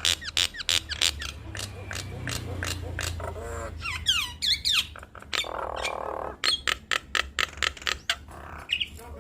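Nias hill mynas calling in a duet: a rapid run of sharp clicks, quick falling whistles, and a harsh rasping call a little past the middle.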